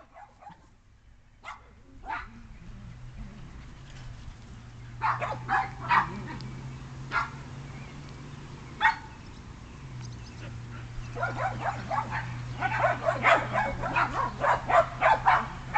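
Shetland sheepdogs barking and yipping in play. There are scattered single barks, then a short burst about five seconds in, and rapid, nearly continuous barking over the last five seconds. A steady low hum runs underneath.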